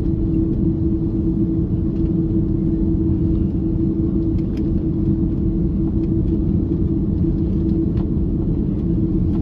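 Steady low rumble inside an Airbus airliner's cabin as it taxis, with a constant hum held throughout.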